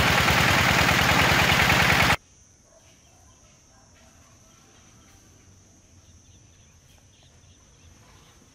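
Miniature gasoline engine belt-driving a small water pump, running loud with a rapid, even firing beat. About two seconds in, the sound cuts off suddenly, leaving faint outdoor ambience: a steady high insect drone and a few faint bird chirps.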